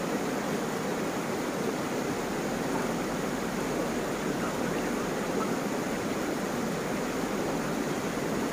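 Shallow river water running steadily over rocks and stones, a constant rushing with no change.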